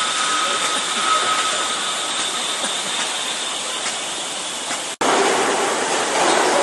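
CNC cylindrical grinding machine running: a steady hiss with a faint high whine, which drops out abruptly about five seconds in and comes back as a louder, coarser hiss.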